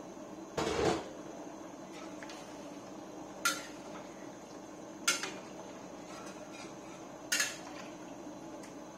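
A metal ladle clanking against a steel wok: one heavier clatter about a second in, then three short sharp clinks a second or two apart.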